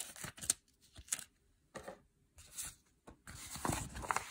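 Paper being handled: a few short rustles, then a longer stretch of rustling near the end as a folded paper instruction sheet is picked up and unfolded.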